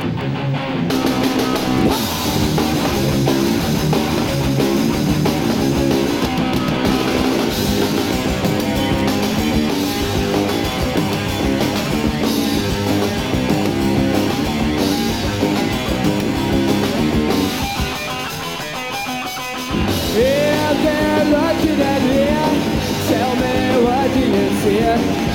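Punk rock band playing live: electric guitar, bass and drum kit. About three-quarters of the way through, the sound thins out and drops for a couple of seconds, then the full band comes back in.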